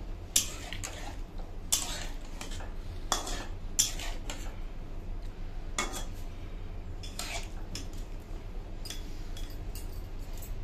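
A metal spoon stirring a vegetable curry in a black iron wok, with irregular clinks and scrapes against the pan, over a low steady hum.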